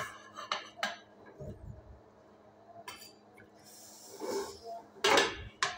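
Serving utensil clinking and scraping against a ceramic bowl and a pressure-cooker pot as fish curry is ladled out: a few sharp clinks, with a louder cluster of knocks near the end.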